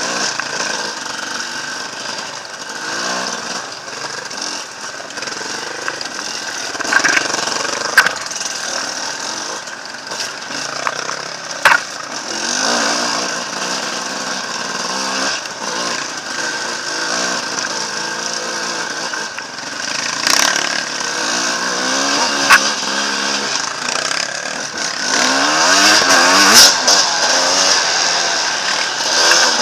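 Enduro dirt-bike engine revving up and down over rough ground, with several sharp knocks from the bike striking rocks or branches; louder and busier near the end.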